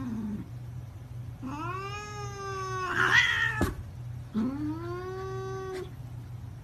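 Domestic cat giving two long, drawn-out yowls, each rising in pitch and then held, with a short sharp click between them. A steady low hum runs underneath.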